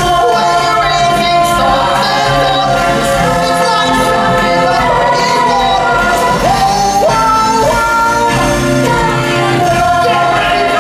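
Song from a live stage musical: voices singing over instrumental music.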